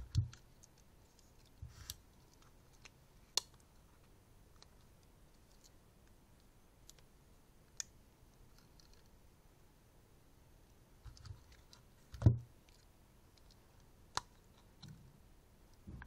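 Victorinox army pocket knives being handled: scattered sharp clicks of blades and tools snapping open and shut, at irregular intervals, the loudest a click with a knock about twelve seconds in.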